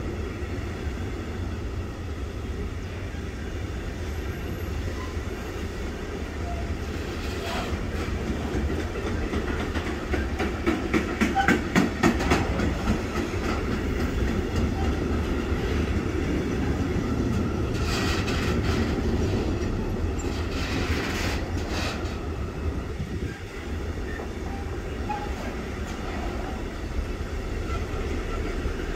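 Container wagons of a long freight train rolling past: a steady rumble of steel wheels on rail, with two runs of rapid clicking as the wheelsets pass over the track, loudest about eleven seconds in and again around twenty seconds in.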